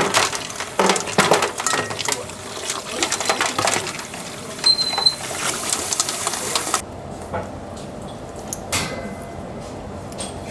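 Kitchen work: rapid clattering and knocking of utensils and dishes over a hiss of water. It cuts off suddenly about seven seconds in, leaving a quieter steady hum with a few light knocks.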